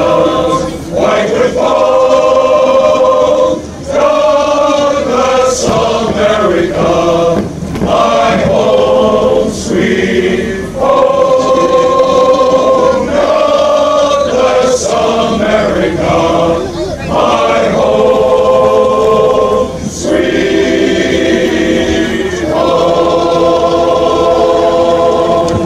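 Men's chorus singing unaccompanied, holding chords in phrases of a few seconds each, with brief breaks for breath between phrases.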